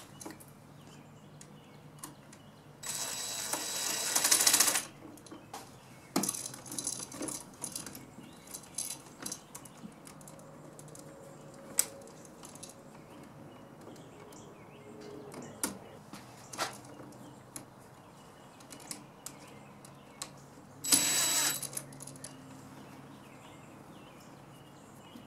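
Light metal clicks and rattles from a wall light switch and its small terminal screws being handled. Two louder rushing noises stand out, one of about two seconds a few seconds in and a shorter one near the end.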